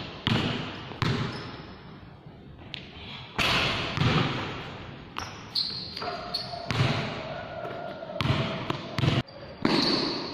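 Basketball bouncing on a hard court floor in an uneven dribble, roughly one bounce a second, each bounce echoing in a large hall. A few short squeaks of sneakers on the court come between the bounces.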